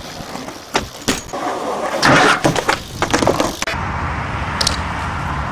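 BMX bike riding on concrete: a few sharp knocks and clatters of the bike landing on the park, a loud scraping rush of tyre noise, then a steady low rumble from about two thirds of the way in.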